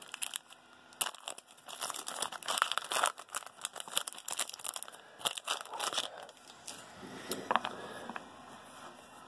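Shiny foil trading-card pack wrapper crinkling and tearing as the pack is pulled from the box and ripped open, a run of irregular crackles. Near the end it gives way to softer rustling and a few clicks as the cards are handled.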